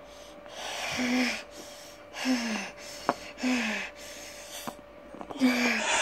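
A person voicing play-fight noises: four breathy huffs, each ending in a short falling grunt, with a sharp click between the second and third.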